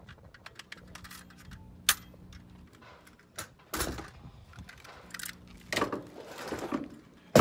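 Handling clatter: a sharp click, then several knocks and metallic rattles as the air stapler is set down and tool-belt gear jangles.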